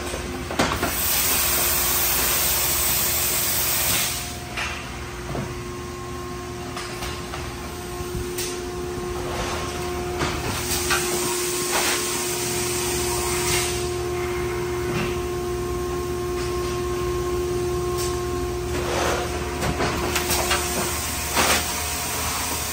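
Industrial plastics-processing machinery running: a steady machine hum with a held tone, loud hissing blasts of air about a second in and again near the middle, and scattered clicks and knocks.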